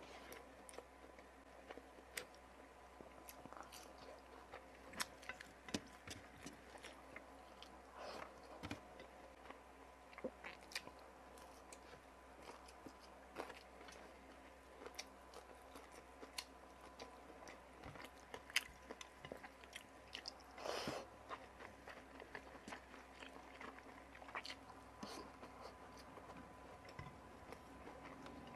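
Close-miked chewing and biting, with many small sharp crunches and clicks, as fried round scad (galunggong) and adobo water spinach are eaten. A slightly longer, louder noisy sound comes a little past the middle.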